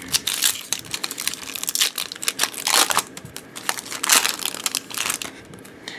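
Topps Opening Day baseball card pack being torn open, its wrapper crinkling and rustling in irregular crackles.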